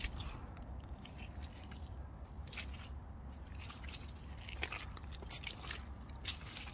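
Aigle rubber wellington boots squelching and sucking in deep wet mud, a run of irregular wet squishes and crackles, with a few louder ones scattered through.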